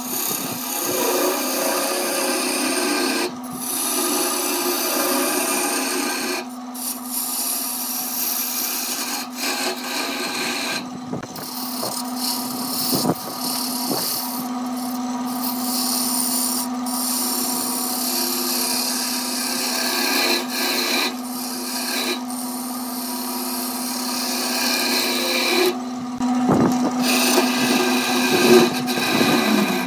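Wood lathe running with a hand-held chisel cutting into the spinning wooden workpiece: a steady motor hum under the rasping scrape of the tool, which breaks off for short moments a few times.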